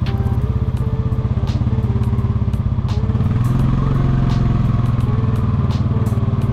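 Four-wheeler (ATV) engine running at low speed under load while it tows a car, a steady fast-pulsing putter, with a few light clicks over it.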